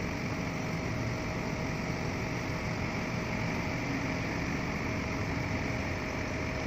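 Steady low mechanical drone with a faint, constant whine above it: the running machinery of a container-port berth.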